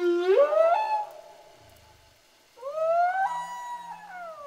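Humpback whale song: long moaning calls that swoop up and down in pitch. One call rises and ends about a second in, and after a pause another begins around two and a half seconds in, climbing and then sliding down.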